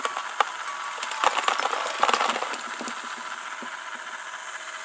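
Small translucent blue Lego pieces poured from a plastic cup onto a Lego machine, clicking and rattling as they land, over a steady rushing hiss like running water.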